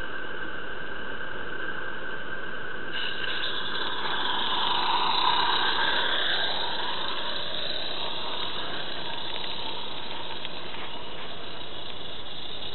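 Roundhouse 'Billy' live-steam model locomotive running on garden track, hissing steam. The sound swells to its loudest as it passes close by about five seconds in, then fades as it moves away.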